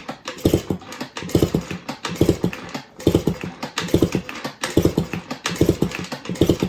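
Honda Express NA50's 49cc two-stroke single being cranked over for a compression test, with the gauge in the plug hole. It makes a steady, rhythmic huffing, a little more than once a second.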